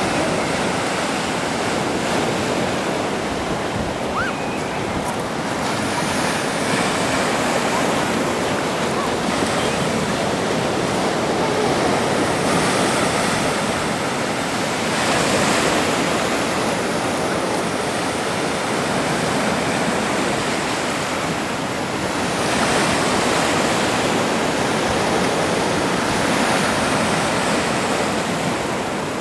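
Black Sea surf: waves breaking and washing on the shore, a steady rush that swells and falls back every few seconds.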